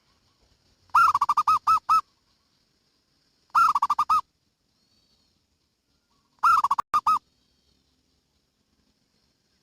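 Zebra dove cooing: three short phrases of quick, rolling coos, each a rapid run of repeated notes, a few seconds apart.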